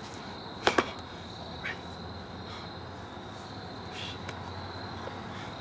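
Two sharp knocks in quick succession about two-thirds of a second in, then a fainter one a second later, over a faint steady background with a thin high whine.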